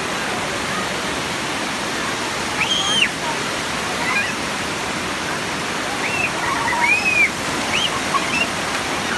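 Tomara Waterfall's water falling in a steady, dense rush. A few short, high, arching chirps sound over it, one about three seconds in and several more near the end.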